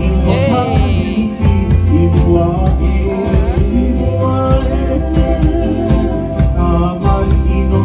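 Music with singing over a steady bass beat.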